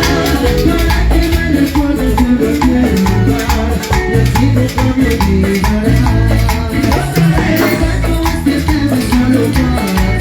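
Upbeat Latin dance music with a steady, quick beat.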